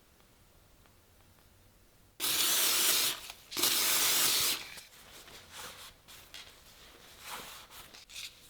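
Two sprays from an aerosol can, about a second each with a short gap between, followed by softer rubbing and scratching.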